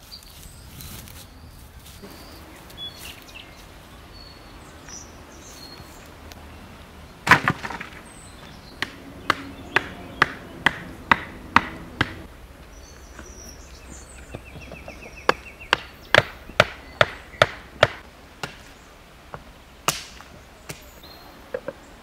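Chopping with a heavy blade: one loud blow about seven seconds in, then two runs of sharp strokes about two a second, and a few scattered blows near the end.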